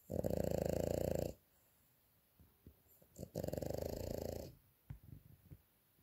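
French bulldog snoring in his sleep: two long, loud, fluttering snores, each a little over a second and about three seconds apart, with faint short snuffles between them.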